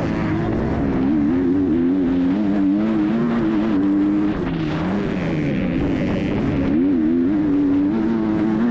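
Onboard sound of a 250cc four-stroke motocross bike racing: the engine's pitch keeps rising and falling as the rider opens and shuts the throttle, with a brief drop about four seconds in. Wind rushes over the microphone underneath.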